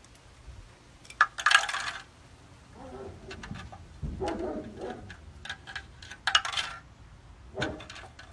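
Clinks and clatters of a small hard object, with two louder rattling bursts about a second and a half in and about six seconds in.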